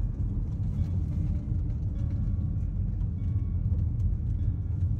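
Steady low rumble of a vehicle on the move.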